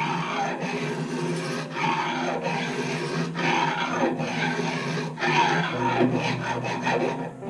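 A long levelling tool is pushed back and forth over a guitar's stainless steel frets, levelling them. It makes a rasping, scraping noise in repeated strokes.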